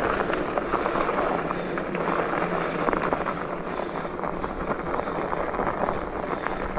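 Studded fat-bike tires rolling over snow and frozen ground, a steady crunching noise dotted with many small clicks and rattles from the bike.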